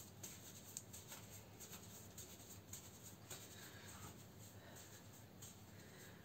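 Faint, scratchy rustling of a plastic hair pick being worked through curly hair to separate the curls, in irregular light strokes.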